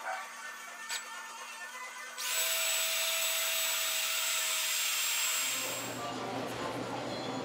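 Cordless drill spinning a wooden plane knob against a sanding sponge: it starts about two seconds in and runs steadily at full speed with a constant whine and sanding hiss, stopping after about three seconds. Then a different steady low hum with hiss takes over.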